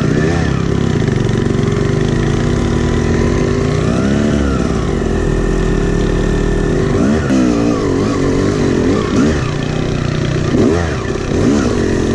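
Yamaha YZ250X two-stroke dirt bike engine heard from the rider's seat, running under way with its pitch rising and falling again and again as the throttle is opened and shut.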